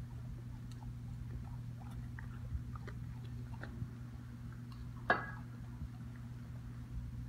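A dog chewing chunks of cooked steak off a plate, with small wet clicks and smacks throughout. There is one sharper clink a little over five seconds in.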